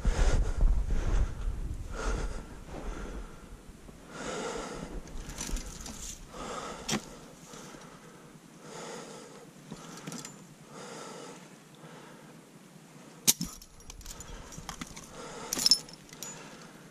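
A person breathing heavily, about one breath a second. Near the end come two sharp clicks.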